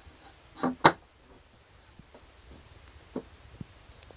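A few sharp clicks and light knocks over quiet room tone, the loudest a close pair about a second in, with fainter single ticks near the end.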